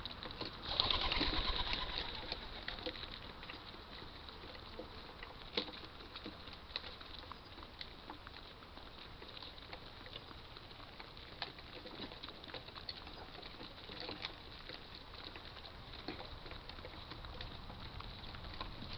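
Pigeons in a garden: a brief flurry of wing flaps about a second in, then faint scattered ticks over quiet background.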